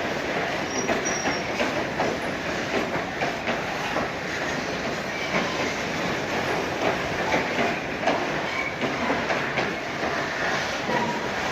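Railroad cars rolling past, the wheels clicking over rail joints, with brief high squeals from the wheels now and then.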